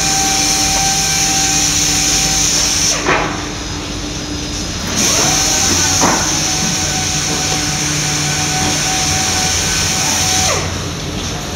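EastField HHPC-1500HD foam convoluting machine running: a steady motor hum with several held tones under a loud high hiss. The hiss drops out for about two seconds a few seconds in, and again near the end.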